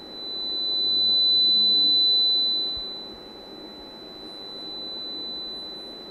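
Steady high-pitched 4000 Hz sine tone from a small speaker driven by a homemade analog graphic equalizer. It swells loud and fades back within the first three seconds as the 4000 Hz band's slide potentiometer is pushed up and pulled down, then rises and falls again more gently near the end.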